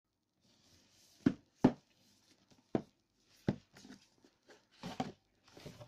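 Cardboard and paper packaging being handled: four sharp knocks and taps of the box, then rustling and sliding as a card sleeve is slid off the headphone box.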